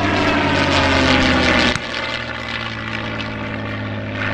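P-51 Mustang's V-12 engine at power on a display pass, its many-toned note falling in pitch as it goes by. Under two seconds in the sound drops suddenly to a quieter, steady drone.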